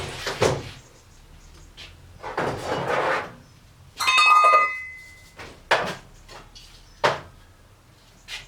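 Short bursts of aerosol carburettor cleaner sprayed from a can that is running low, with a brief metallic ring about four seconds in and a few sharp clicks of small metal parts near the end.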